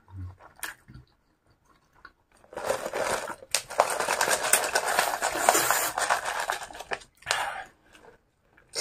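Plastic cup of iced drink being shaken, the ice rattling and crunching against its sides for about four seconds, followed by short sips through a straw near the end.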